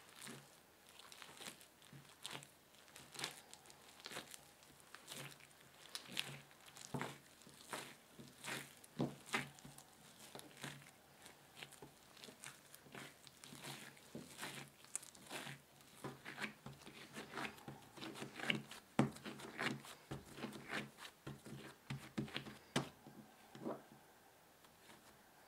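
Berry bagel dough being kneaded by hand on a silicone baking mat: an irregular run of short, soft sticky pressing and tearing sounds, about one or two a second, as the dough is pushed, folded and pressed down.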